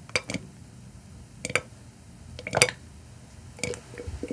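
Close-miked gulps of a person drinking wine from a glass: about five swallows, roughly one a second.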